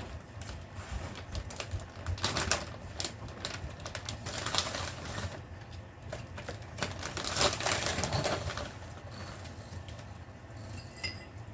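Small long-coat Chihuahuas fidgeting while made to wait for their food: a run of light clicks and scuffles, with louder rustling bursts about two, four and a half and seven and a half seconds in, and faint high whimpers near the end.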